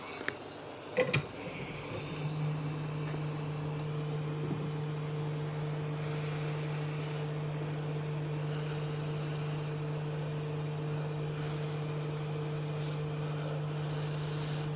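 Hot-air rework gun blowing steadily, a whoosh of air with a steady hum from its fan, after a couple of light clicks at the start; it is heating the USB flash drive's circuit board, which is left too hot.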